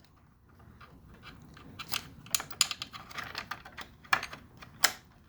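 Irregular light clicks and taps of small parts being handled and set down, starting about a second and a half in, with two louder knocks near the end.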